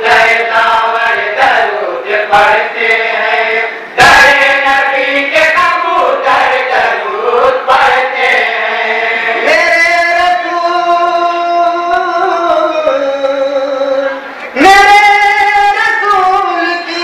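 Male voices singing together, without instruments, in long held melodic phrases in a chanting style; a new phrase starts loudly twice.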